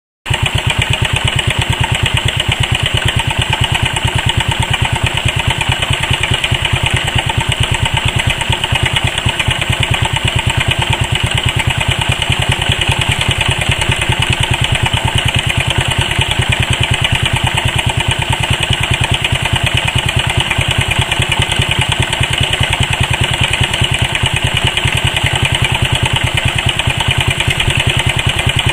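Moped engine running steadily at idle, with the knocking (стук) that the owner is showing; the rapid, even beat starts abruptly a moment in and holds without a change in speed.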